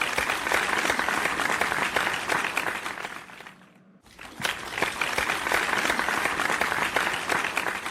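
Audience applause sound effect: dense clapping in two stretches of about four seconds each, the first fading out just before four seconds in and the second fading near the end.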